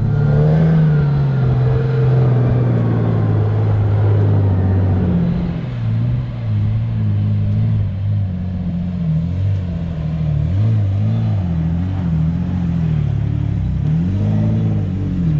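Toyota Hilux engine pulling the vehicle along. Its revs hold steady at first, then rise and fall again and again through the second half.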